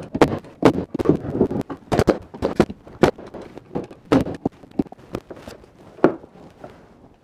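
Bostitch 16-gauge pneumatic crown stapler firing 2-inch staples into the pine boards of a beehive super: a rapid, irregular run of sharp shots that thins out after a loud one about six seconds in. These are touch-up staples to finish the box joints.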